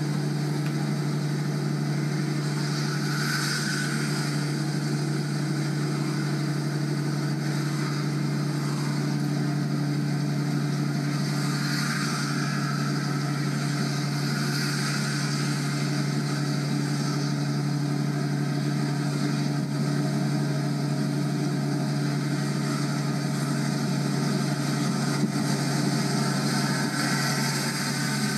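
Road noise inside a car cruising at steady motorway speed: a constant low drone with tyre and wind noise, swelling briefly a few times.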